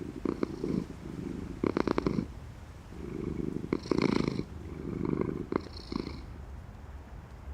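Cat purring in slow, rhythmic in-and-out cycles, about seven swells over the stretch, the purr's pulses plainly audible on the louder ones.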